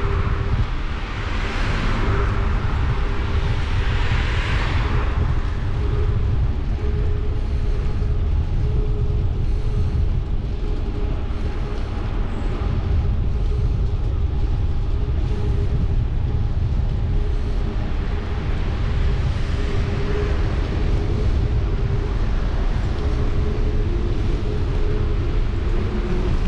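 Wind buffeting a camera microphone on a moving bicycle: a heavy, steady low rumble. Road vehicles swell past during the first few seconds.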